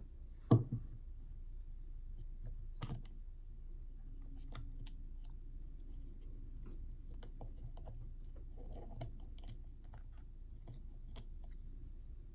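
Hard plastic toy pieces clicking and tapping as they are handled and fitted into place, with a sharp knock about half a second in and another about three seconds in, then many small light clicks.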